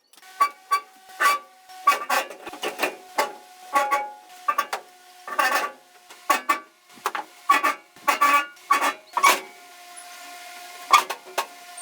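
Repeated sharp metallic knocks and clanks, irregular at about two a second, each ringing briefly at the same few pitches; a steady hum comes in near the end.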